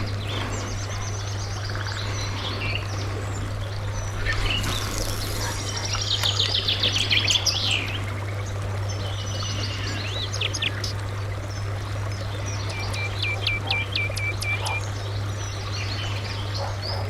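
Several wild birds singing: short calls, a fast trill in the middle and a run of quick repeated notes later on, over a steady low hum.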